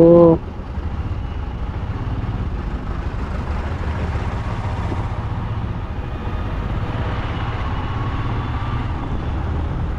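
Motorcycle running steadily on the road, a low, even engine and road rumble.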